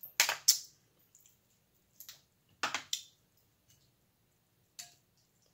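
Close-miked eating sounds from a seafood boil: short wet smacks and clicks of mouth and fingers, a few in the first second, a cluster around three seconds in, and one more near the end.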